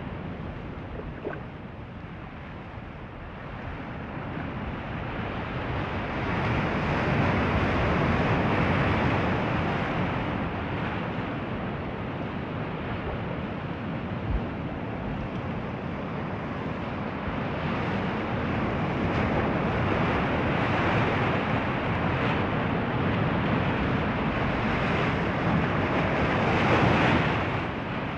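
Ocean surf: waves breaking and washing ashore in a steady hiss that swells and eases, with one big build peaking about eight seconds in and another near the end.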